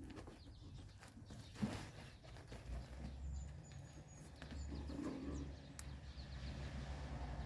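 Outdoor ambience: a steady low wind rumble on the microphone, with faint bird chirps about three to four seconds in and a few light knocks.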